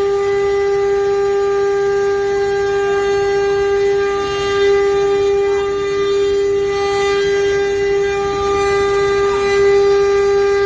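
Multi-spindle CNC router running, its spindles giving a steady high-pitched whine over a rough cutting noise that swells a little now and then.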